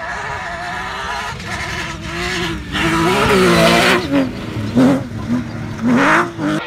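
Off-road rally buggy engine revving hard as it comes close and passes, its pitch rising and falling with the throttle. Loudest about three to four seconds in, then two short bursts of revs near the end.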